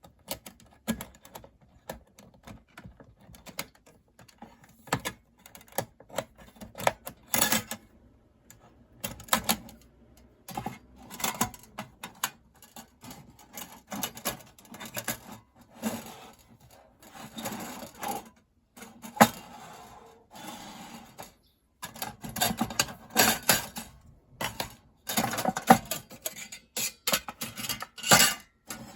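Thin metal parts of a compact folding fire pit clinking and clattering as they are handled, in irregular clicks and rattles with a few louder clanks.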